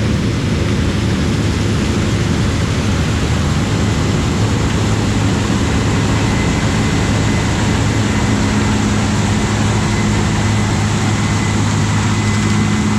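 Heavy farm harvest machinery running steadily at working speed in corn harvest: a constant low engine hum under a loud mechanical rush, with a faint high whine joining about halfway.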